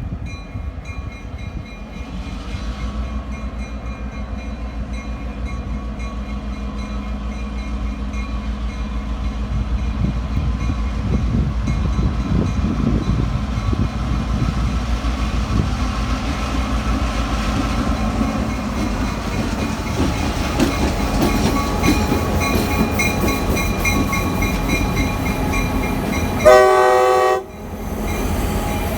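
Diesel freight train approaching, its low engine and wheel rumble growing steadily louder, then a loud, short blast of the locomotive's multi-chime air horn near the end, with a second blast starting just as it ends.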